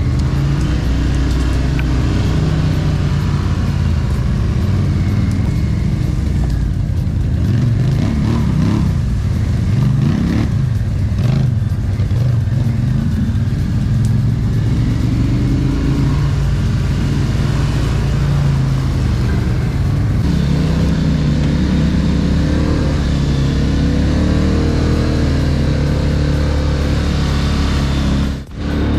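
Quad-bike engine running under way on a trail, its pitch rising and falling with the throttle, with a brief drop-out near the end.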